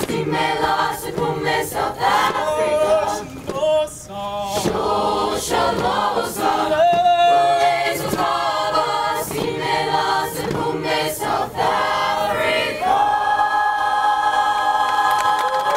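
Mixed choir of male and female voices singing, with a beat of sharp hits running through the song. About 13 seconds in, the voices settle on a long held final chord.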